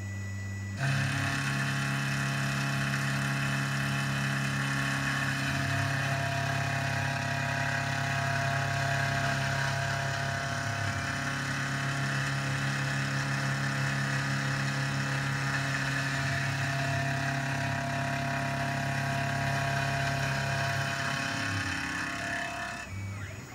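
Tormach CNC mill running, its end mill contouring a mild steel part: a steady machine hum with several held high tones. It steps up about a second in and eases off near the end.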